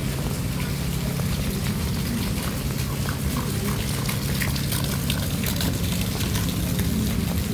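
Steady rainfall, with many fine drops ticking throughout, over a steady low hum.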